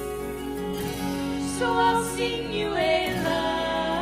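Live worship music: instrumental accompaniment with a woman's singing voice coming in about a second and a half in and holding long notes.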